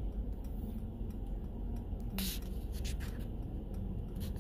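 Steady low rumble of a car's cabin while driving, with light scraping and a short sharp scrape about two seconds in.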